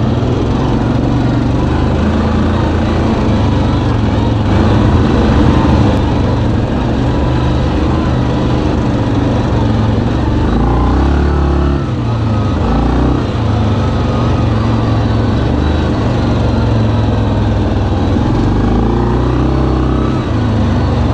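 2019 Yamaha Kodiak 700 ATV's single-cylinder engine running steadily under way, its note dipping and rising a few times about halfway through as the throttle changes.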